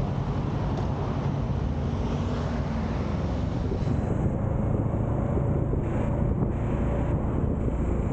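Kawasaki Z650 motorcycle's parallel-twin engine running steadily while riding, with wind buffeting the microphone.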